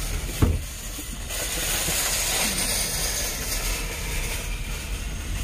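A single knock about half a second in, then a steady rushing hiss with a low rumble underneath.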